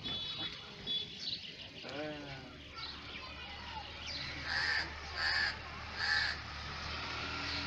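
A crow cawing three times in quick succession, evenly spaced a little under a second apart, about halfway through.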